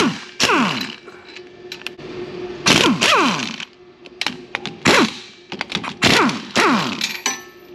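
Sharp metal-on-metal knocks from hand tools on a car's rear wheel hub assembly, about seven of them at uneven intervals. Each knock is followed by a brief ring that falls in pitch.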